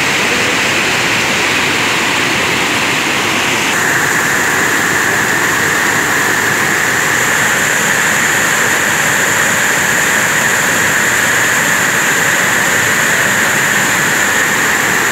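Loud, steady rush of muddy river floodwater pouring over a weir and churning in the pool below. Its tone shifts a little about four seconds in.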